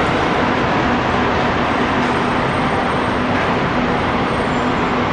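Steady city street and traffic noise at a Hong Kong tram stop, with a faint low hum that keeps cutting in and out.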